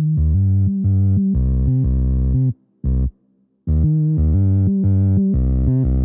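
Background music: synthesizer and bass playing chords in choppy blocks that start and stop abruptly, with a pause of about a second midway.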